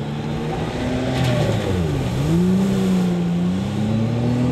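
Acura 3.7-litre V6 engine of a WaterCar Panther amphibious jeep running. Its pitch drops steeply to a low point about two seconds in, then climbs back and holds steady.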